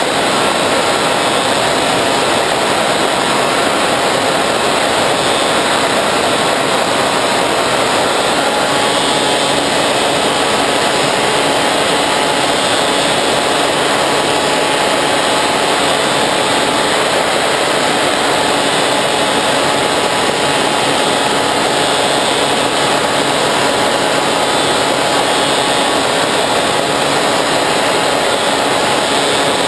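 Bixler 3 RC plane's brushless electric motor and pusher propeller running steadily in flight, heard through the onboard camera together with a heavy, even rush of air noise.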